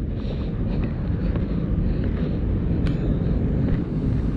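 Steady low rumble of water pouring through a dam spillway.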